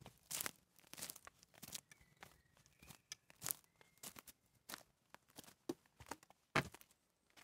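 Footsteps crunching over dry twigs, pine needles and leaf litter on a forest floor, about two steps a second, with one louder crunch near the end.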